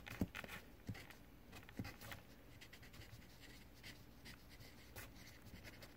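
Pen writing on paper: faint scratching strokes with a few light taps, the most distinct in the first two seconds.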